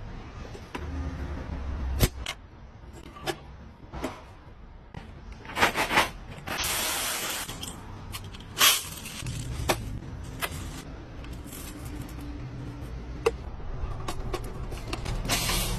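Sharp mechanical clicks and knocks of airsoft guns being handled, with a hiss lasting about a second and a half a little before the middle.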